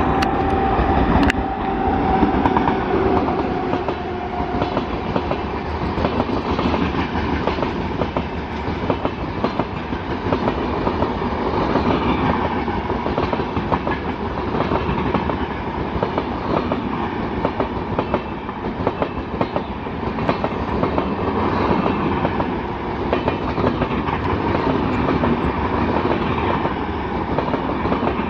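Locomotive horn held on one note over the first few seconds of an approaching express, then fading out. After that, a long, steady rush of LHB passenger coaches going by at speed, with rapid clickety-clack of wheels over rail joints.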